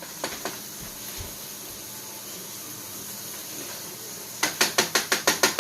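Hamburger steaks sizzling in a frying pan with a steady hiss. About four seconds in, a fast run of sharp clicks, about seven a second, starts and is louder than the sizzle.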